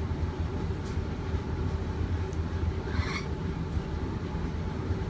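Steady low mechanical hum and rumble of a running air conditioner, with one brief soft rustle about three seconds in.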